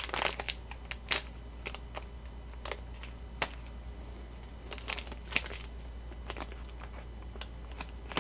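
Scattered light clicks and ticks at irregular intervals, over a faint steady low hum.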